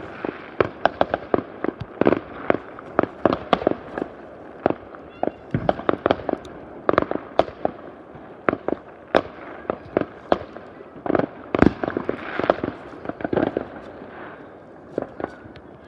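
New Year's fireworks going off all around: a dense, irregular run of sharp bangs and pops, several a second at times, over a continuous haze of more distant explosions and crackle.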